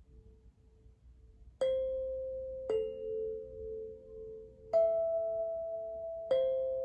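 Tuned metal notes struck one at a time, four of them about a second or two apart. Each rings on and fades slowly, so the notes at different pitches overlap into a soft chord, over the fading pulse of an earlier note.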